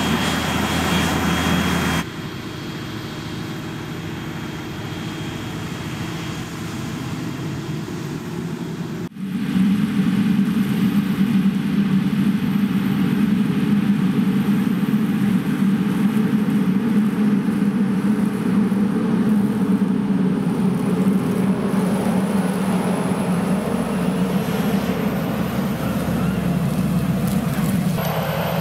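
Large tractor engines running steadily while working in the field, in several clips joined by abrupt cuts at about 2 and 9 seconds in. The running is louder from about 9 seconds on.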